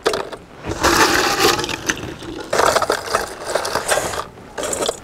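Chunks of ice being broken up by hand and packed around a steel bowl in a basin of ice and salt, the ice-salt bath for freezing ice cream: crunching, cracking and scraping in three bouts with short pauses between.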